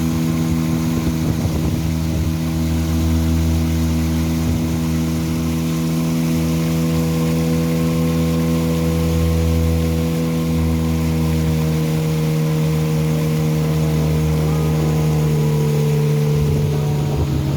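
Small boat engine running steadily at cruising speed, its pitch sagging slightly near the end.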